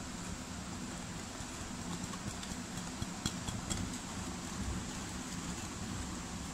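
Wire whisk stirring thick cake batter in a bowl, with a few faint clicks of the wires against the bowl about halfway through, over a steady low hum.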